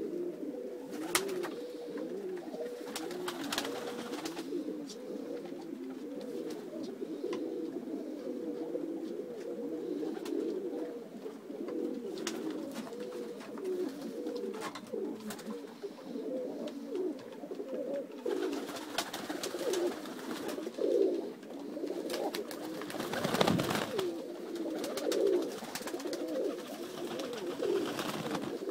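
Many domestic pigeons cooing together, their overlapping coos going on without a break. A few sharp clicks, with a brief louder rustling burst about 23 seconds in.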